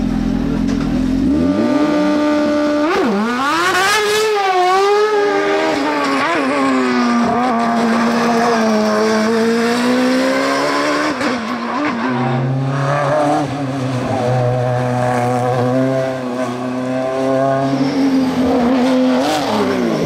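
Racing car engines. One idles steadily for the first second or so; then engines rev hard, the pitch climbing and dropping again and again with gear changes and lifts, settling into a steadier drone in the second half.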